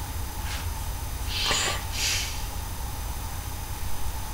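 A man breathing close to the microphone: two short, hissy breaths about a second and a half in, over a steady low hum.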